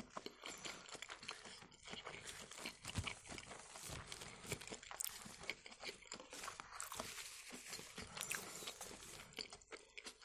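Close-miked chewing of a rice-porridge pancake roll filled with trout, pear and lettuce: a steady run of small, wet mouth clicks.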